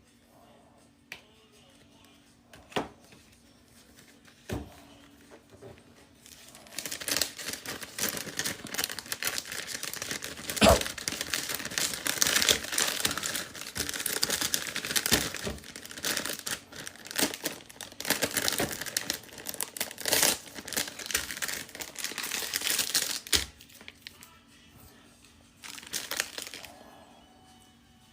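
Crinkly plastic packaging rustling and crackling as Pokémon trading cards are handled, starting about six seconds in and running densely for some seventeen seconds, with a few light clicks before and a short final rustle near the end.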